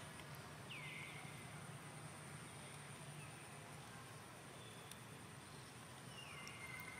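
Faint outdoor field ambience: a steady high insect trill over a low hum, with a short call that drops in pitch and then holds, heard twice: about a second in and again near the end.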